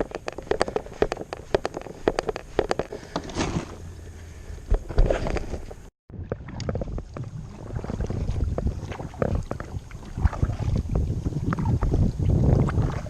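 Irregular knocks and clicks around a kayak on the water. After a cut about six seconds in, wind buffets the microphone, growing louder toward the end.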